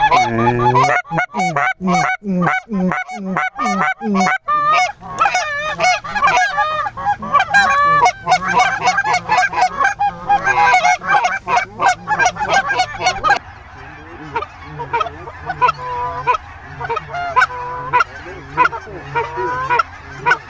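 A large flock of snow geese calling, many high yelping calls overlapping. It opens with a run of evenly spaced calls, about two or three a second, then builds into a dense clamour; about 13 seconds in it drops to a quieter, steady chorus.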